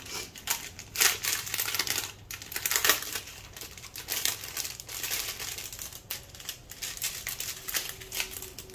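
Clear plastic bags of diamond painting drills crinkling as they are handled and sorted by hand, in irregular rustles.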